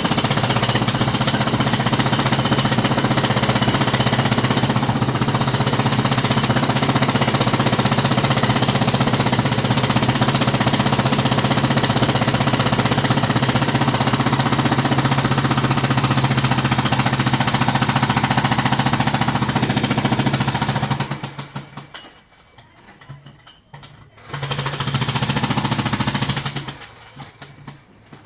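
Jackhammer running in a long continuous burst of rapid hammering that stops about twenty-one seconds in, followed by one short burst a few seconds later.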